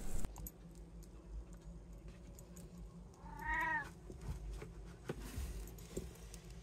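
A cat meows once, a short call that rises and then falls in pitch, about three and a half seconds in.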